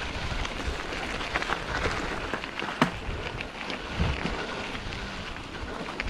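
Giant Revel mountain bike rolling over a stony trail: tyre noise and frame rattle with scattered clicks and knocks, one sharp knock a little under three seconds in, and wind on the microphone.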